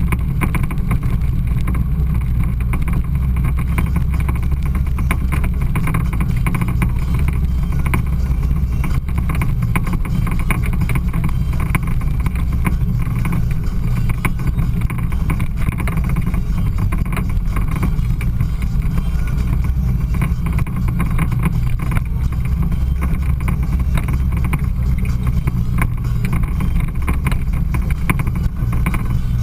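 Side-by-side off-road vehicle engine running steadily: a constant low drone with no letup.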